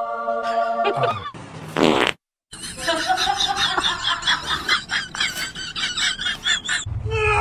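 A tune ends about a second in, followed by a raspy fart sound lasting under a second, dubbed over the grimacing cat. After a brief cut to silence, a few seconds of choppy, raspy sound follow.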